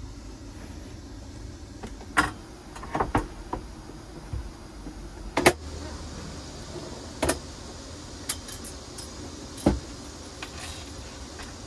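Knocks and clunks of a caravan's dinette tabletop being handled and set in place, with lighter clicks and rattles between. A sharp knock about five and a half seconds in is the loudest, and another strong one comes near the end.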